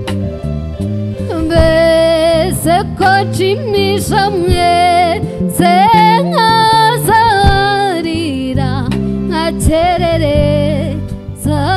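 Live band music: a woman sings with vibrato into a microphone over electric bass, keyboard and drums.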